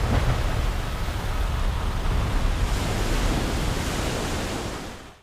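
A dense, noisy cinematic rumble with strong low bass and no clear pitch, held steady, then fading and cutting off just before the end.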